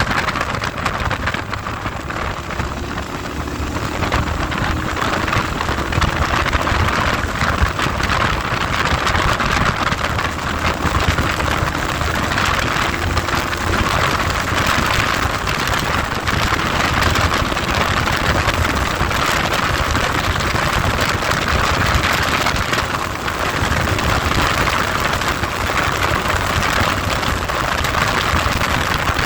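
Heavy wind noise buffeting the microphone on a moving ride, a steady rushing hiss, with a vehicle engine faintly underneath that rises in pitch a few seconds in.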